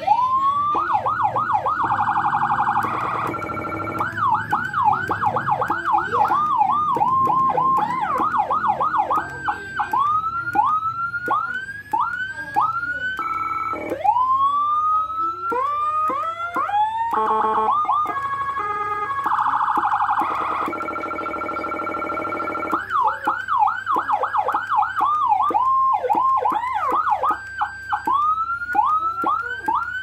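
Electronic siren from a handheld siren controller, a replica of the Whelen HHS 3200, switching every few seconds between tones as buttons are pressed: fast rising-and-falling yelps, repeated rising sweeps about once a second, one slow long rise, stepped tones and short steady held tones.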